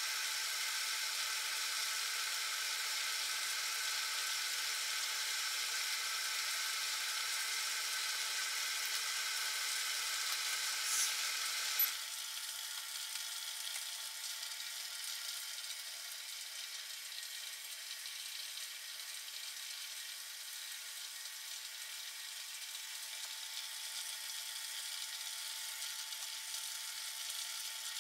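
Homemade aluminium-can alcohol stove burning under a steamer pot, a steady hiss with a sizzle. About 12 seconds in the sound abruptly thins out and drops slightly in level.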